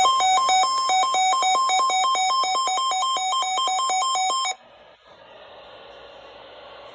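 Weather radio alert alarm for a severe thunderstorm warning: an electronic two-tone beeping warble that switches between a higher and a lower pitch several times a second. It cuts off suddenly about four and a half seconds in, leaving faint radio hiss.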